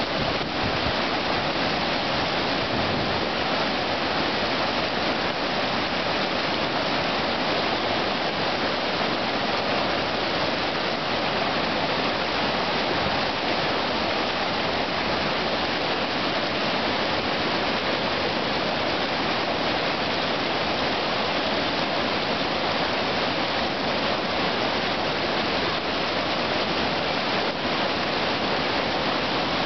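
Whitewater rapid rushing steadily, the river churning and foaming through a hole.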